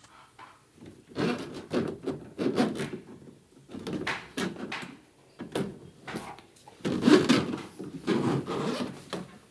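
Irregular rubbing and scraping of hard parts being handled, in a string of short strokes of uneven length.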